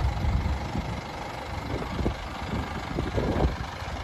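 Toyota Dyna truck's 15B four-cylinder diesel engine idling steadily, with irregular low thumps over it in the second half.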